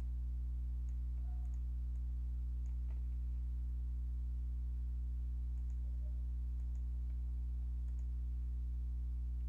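A steady low electrical hum runs throughout, with about six faint, short computer mouse clicks scattered through it as text is selected and a menu is opened.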